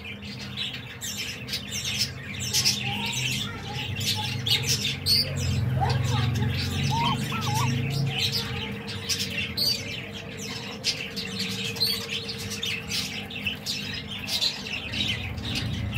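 Small cage birds chirping busily and repeatedly, with a steady hum underneath that fades out about three-quarters of the way through.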